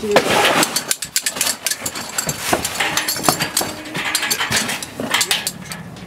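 Irregular metallic clinks and knocks of hand tools and bolts against the steel girders and perforated steel decking as the decking is fixed to the bridge from below.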